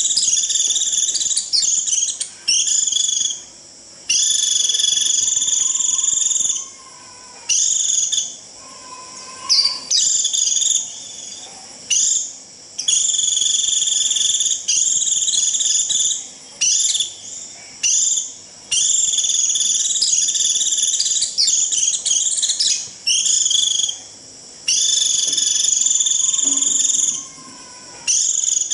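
Vành khuyên (white-eye) giving its shrill 'rít' flock call, played as a lure: high, buzzy, even-pitched phrases of one to two seconds, repeated again and again with short gaps and a few quick chips between.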